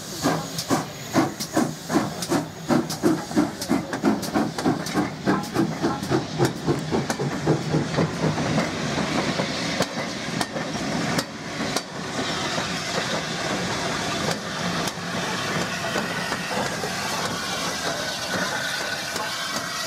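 GWR pannier tank steam locomotive no. 9600 working a passenger train past, its exhaust beating in a quickening rhythm with steam hiss as it gathers speed. The beats fade about halfway through, and the coaches and a trailing A4 locomotive then roll by with a steady rumble and occasional wheel clicks over rail joints.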